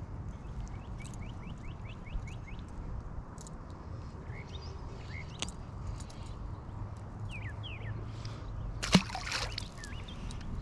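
A small largemouth bass dropped back into the pond, hitting the water with one sharp splash about nine seconds in. Birds chirp in quick falling notes in the background over a steady low rumble.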